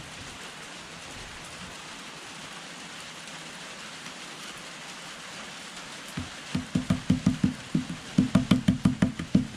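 A steady hiss. About six seconds in, a fast run of sharp knocks begins, several a second, each with a short dull ring: a small hand tool chipping and tapping crust off the rusted iron receiver of a Civil War Burnside carbine.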